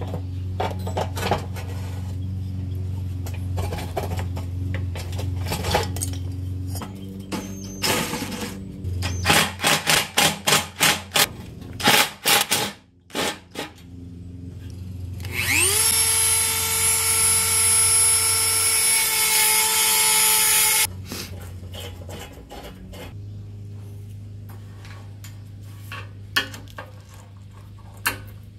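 Metal pedal-tractor parts being worked by hand, with a quick run of knocks and clicks, then a small high-speed electric power tool spins up with a rising whine, runs steadily for about five seconds and cuts off, over a steady low hum.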